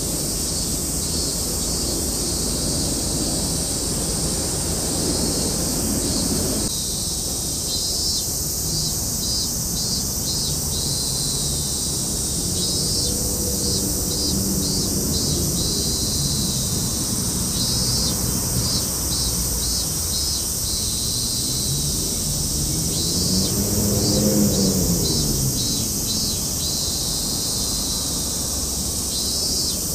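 Outdoor ambience: a steady high chirring with quick pulses throughout, and an engine passing by twice, its pitch rising then falling each time, louder the second time about 24 seconds in.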